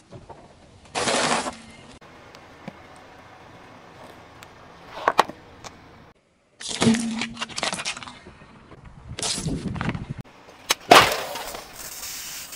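A car tyre rolling over and crushing a series of small objects, heard as several separate crunches and sharp cracks. The loudest is near the end, when soda cans burst, followed by a steady hiss of spraying soda.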